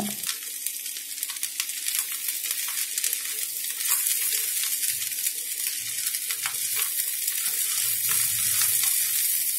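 Spiced rice sizzling in a non-stick frying pan as a wooden spatula stirs and turns it, with scattered light scrapes and knocks of the spatula against the pan. A steady low hum runs underneath.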